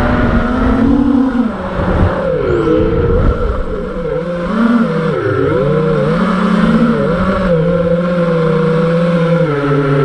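5-inch FPV racing quadcopter's four brushless motors and three-blade props whining, the pitch sweeping up and down again and again with the throttle, over low wind rumble on the onboard camera's microphone.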